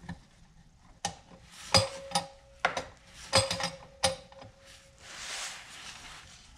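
A metal wrench clinking against the pancake compressor's regulator fittings: several sharp, irregular metal clicks over a few seconds, some leaving a brief ringing tone, followed by a soft rustle.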